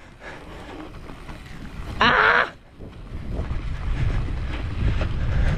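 Wind buffeting the bike-mounted camera's microphone and knobby tyres rolling over grass and dirt as a mountain bike descends, the rumble growing louder from about three seconds in. A brief vocal cry about two seconds in.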